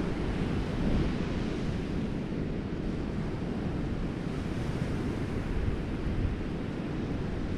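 Surf breaking on a sandy beach, a steady wash of waves, mixed with wind buffeting the microphone in a low rumble.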